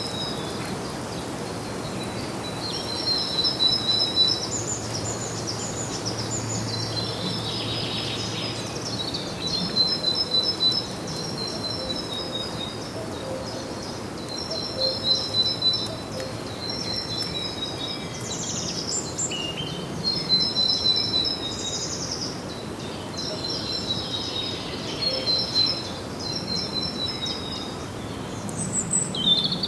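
Songbirds chirping in repeated short phrases of quick high notes, with a few louder sweeping calls, over a steady background hiss.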